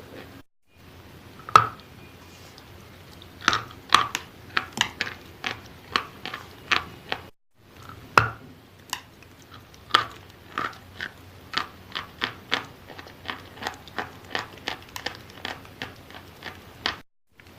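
Wet chalk being bitten and chewed close to the microphone: a steady run of sharp, crisp crunches, about two a second, broken by a few short silent gaps.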